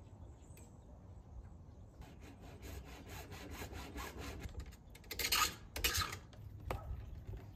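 Hacksaw sawing through PVC downpipe in quick, even strokes. Two louder strokes come near the end as the offcut comes away, then a single sharp click.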